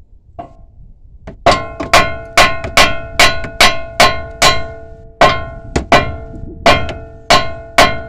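A 3-pound short-handle hammer striking the steel steering knuckle of a 2014 Kia Forte where the tie rod end sits, to shock the tie rod end's tapered stud loose. About fifteen hard, ringing clangs, roughly two and a half a second, with a short break about halfway.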